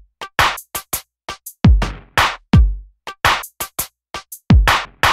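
Electronic background music: a sparse drum-machine beat of deep kicks that drop in pitch and sharp clap or snare hits, with short silent gaps between the hits.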